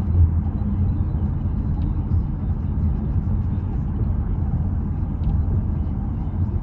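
Wind buffeting and road noise inside a moving car with a window rolled down: a steady low rumble.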